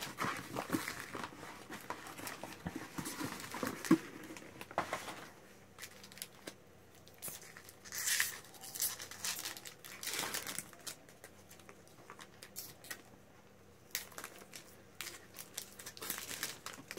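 Foil booster-pack wrapper crinkling and being torn open, mixed with cards and cardboard packaging being handled: irregular rustles and scattered sharp clicks, the sharpest about four seconds in.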